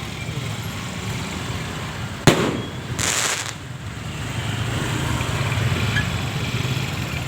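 Fireworks: one sharp bang about two seconds in, followed by a short, high hiss about a second later, over a steady low rumble.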